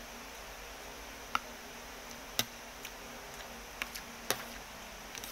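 Metal spoon and fork clinking against a ceramic bowl of noodles: a handful of short, sharp clicks spaced roughly a second apart, over a faint steady hiss.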